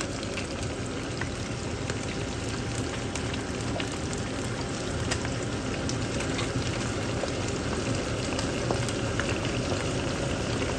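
Rainbow snapper frying in hot oil in a pan: a steady sizzle with scattered small crackles and pops.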